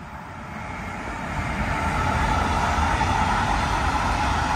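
A train approaching and running past, growing louder over the first two seconds and then holding at a steady, loud rumble.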